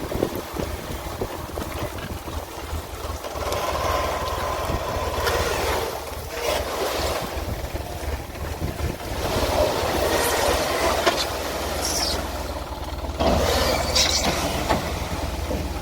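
Diesel engines of a backhoe loader and tractor running under work while mud is loaded into a trolley, a constant low rumble with repeated louder surges and a few short scraping bursts.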